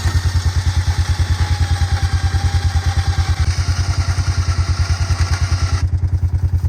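A winch whines as it reels in cable under load, dragging a deer carcass uphill, and stops about six seconds in. Under it a vehicle engine idles with a steady low pulse.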